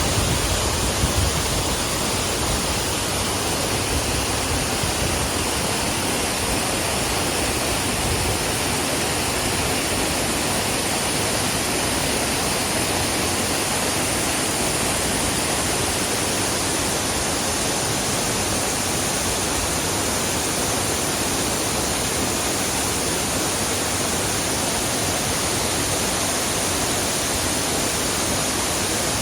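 Twin mountain waterfalls pouring steadily into a pool: a constant, even rush of falling water.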